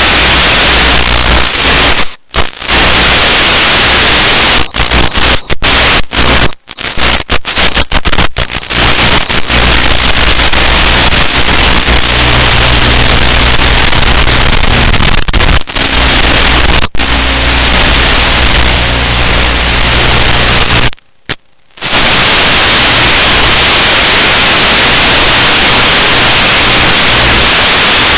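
Loud, steady hiss of static from the audio channel of an analog FPV video link. It cuts out suddenly many times for split seconds in the first third, and for about a second some three-quarters of the way through.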